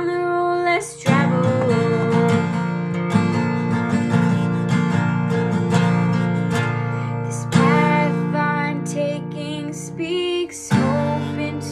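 Acoustic steel-string guitar strummed in a steady chord pattern, the chord changing every few seconds.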